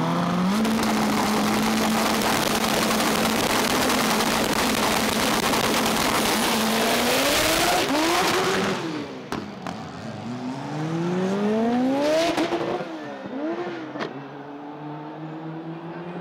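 Honda Civic hatchback drag cars launching and accelerating hard: loud, steady full-throttle engine noise for the first eight seconds or so. After that it drops in level, with the engine pitch climbing and falling again and again through quick gear changes, and a couple of sharp cracks as the cars pull away.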